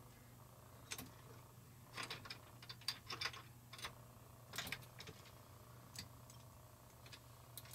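Faint, irregular metallic clicks and clinks, about a dozen scattered through, as a Stellar Labs bowtie antenna's panels are swivelled on their clamp brackets around a metal mast. A low steady hum runs underneath.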